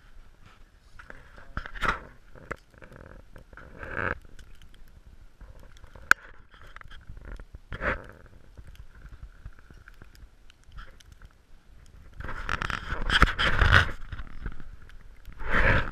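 Handling noise from a handheld action camera: scattered scrapes, rubs and small knocks as it is moved around, with a louder stretch of rubbing about twelve seconds in and again near the end.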